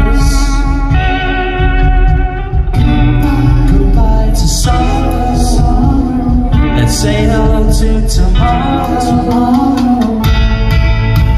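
Live rock band playing loudly: electric guitars over bass and drums, with cymbal crashes every second or so.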